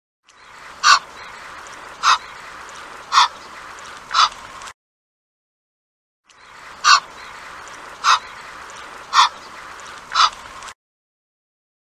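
Egyptian goose calling: four short, loud calls about a second apart, a pause of a second or two, then four more, over a steady background hiss.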